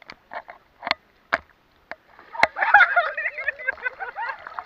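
Sea water slapping and sloshing in a few short splashes, then, about two and a half seconds in, heavier splashing with people laughing and shrieking.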